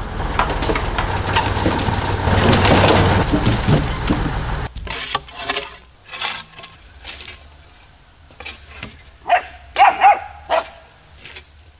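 Timber loader crane's engine running with a steady low hum under dense noise as it handles logs, then shovel blades striking and scraping felled logs in separate knocks. Near the end come a few short, loud animal calls.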